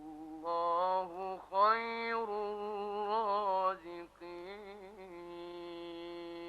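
A single male voice reciting the Quran in melodic tajweed, rising and falling through ornamented phrases and ending on a long held note from about five seconds in.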